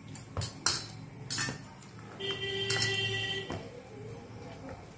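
Dough being kneaded by hand in a stainless steel plate, with a few knocks and clinks of the plate in the first second and a half. A steady sound of several level pitches holds for just over a second in the middle.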